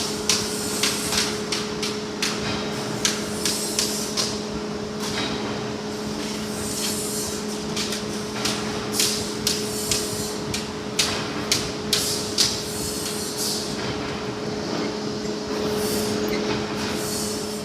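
Spot welder making weld after weld: short, sharp snaps at irregular intervals, often one or two a second, some with a brief hiss, over a steady hum.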